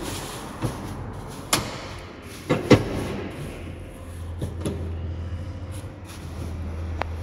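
A series of about seven sharp clunks and latch knocks as the Suzuki Every van's rear seat is raised back up and locked into place, the loudest pair a little under three seconds in. A low hum comes in about four seconds in.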